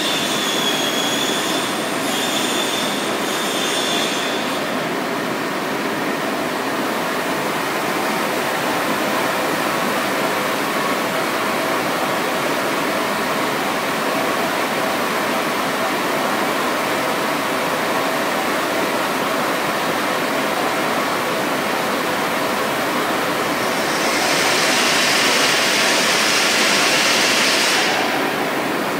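Powder coating booth's extraction fan running with a steady, loud rush of air. A thin high whine sounds for the first few seconds, and near the end the powder spray gun's compressed air hisses for about four seconds as it sprays.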